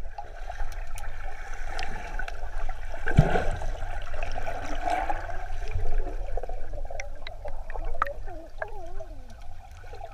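Water sloshing and trickling, with one dull thump about three seconds in.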